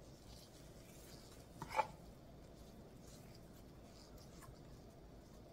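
Faint soft scraping and squishing of a wooden spoon spreading thick chili seasoning paste onto fermented perilla leaves, with one short, louder sound a little under two seconds in.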